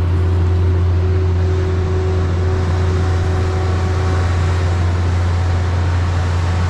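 Concrete pump truck's diesel engine running at a steady speed with a constant low drone, powering the hydraulics as the boom is swung over to the next form.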